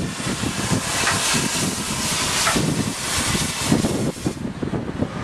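Floridsdorf-built steam locomotive 16.27 running past at speed on a post-restoration test run: rhythmic low pulsing from the engine with a strong hiss over it, the hiss dropping away about four seconds in as the locomotive goes by.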